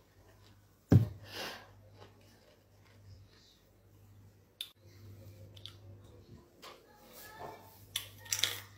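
Scattered mouth clicks and smacking from exaggerated chewing, with one sharp thump about a second in and a few short voice sounds near the end.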